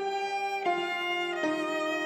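Closing theme music: a slow melody on a bowed viola, long held notes stepping down in pitch about every two-thirds of a second.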